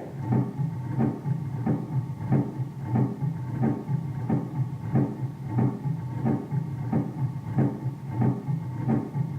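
Simulated heart sounds of mitral stenosis from an auscultation simulator, heard at the mitral focus. The beats are regular, about one and a half a second, over a steady low hum.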